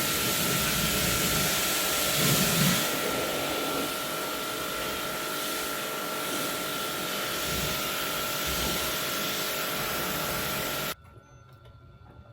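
An electric machine running with a loud, even hiss and a steady high whine, cutting off suddenly about eleven seconds in.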